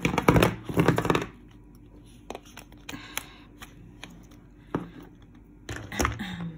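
Small plastic cups of HIMI jelly gouache paint clattering together as they tumble out of their plastic case onto a desk, followed by scattered single clicks as cups are picked up and set down, and a short burst of clatter near the end.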